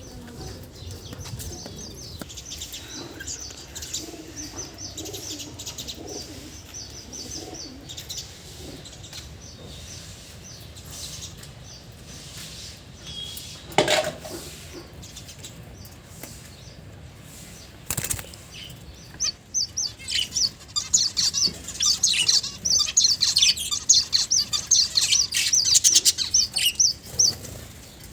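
Small cage finches chirping in many short, high chirps, sparse at first and becoming a busy, louder chatter in the second half. Two brief sudden noises come about halfway through.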